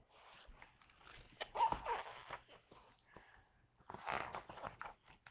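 Paper rustling and book handling as a picture book's page is turned: two spells of crinkly rustling with small clicks, the second starting about four seconds in.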